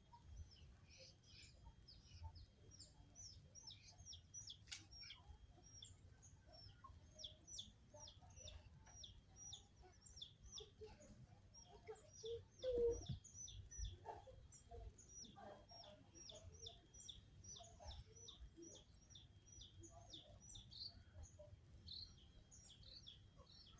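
Faint, rapid chirping of small birds, short high notes repeating several times a second, with a few lower calls mixed in and one louder low call about halfway through.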